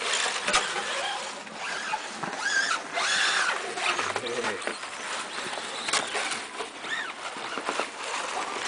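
Radio-controlled rally cars driving through snow, their motors giving short whines that rise and fall over a steady hiss.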